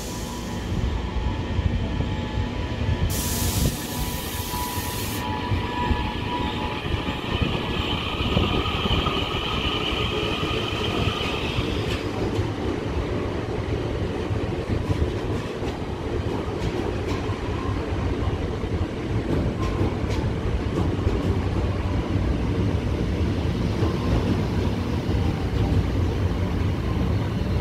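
ITX-Saemaeul electric multiple unit pulling out alongside the platform: a high whine with a brief burst of air hiss about three seconds in, then a rising rumble of wheels clicking over rail joints as the carriages pass faster.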